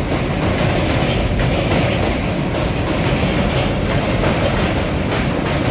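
Indian Railways passenger train coaches rolling across a steel girder bridge: a steady, loud rumble and clatter of wheels on the rails.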